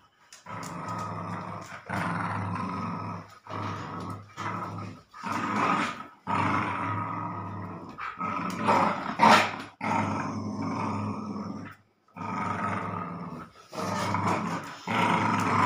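Dog growling in play while tugging on a rope toy: a string of growls about a second long each with short breaks between, the loudest about nine seconds in.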